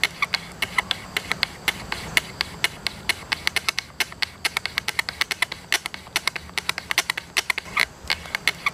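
A thin cane strip (fire thong) sawn rapidly back and forth under a split log to make fire by friction: a fast, uneven run of sharp dry clicks and scrapes, several a second.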